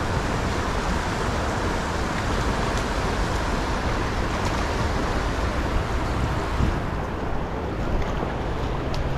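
River rapids rushing over rocks, a steady, unbroken wash of water noise, with wind buffeting the microphone.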